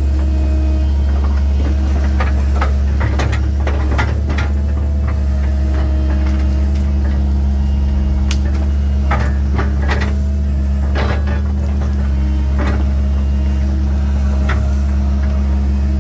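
Link Belt 2700 excavator's diesel engine running steadily under load, with irregular knocks and clanks, heaviest about three to five and eight to eleven seconds in.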